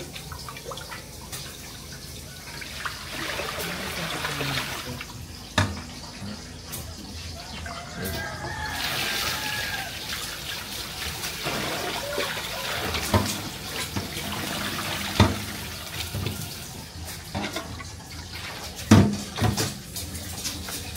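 Tap water running into a sink while hands wash under it, with a few sharp knocks of things handled at the sink, the loudest near the end.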